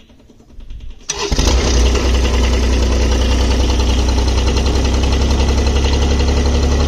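Kubota mini excavator's diesel engine starting from cold: it fires about a second in and settles straight into a steady idle.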